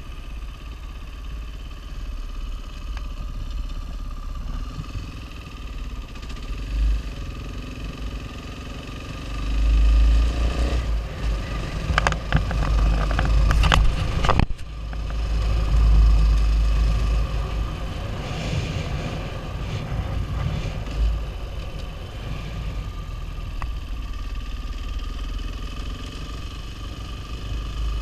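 KTM dirt bike engine running as the bike is ridden along a road, with wind on the microphone. It gets louder around ten and sixteen seconds in. Between these there is a spell of crackling knocks that cuts off sharply about fourteen and a half seconds in.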